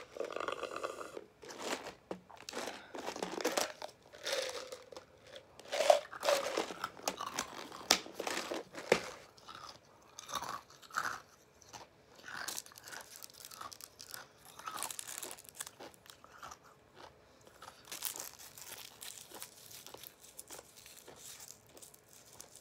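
A person chewing and crunching a mouthful close to the microphone, with irregular crisp crunches. They are loudest and densest in the first half and fainter afterwards.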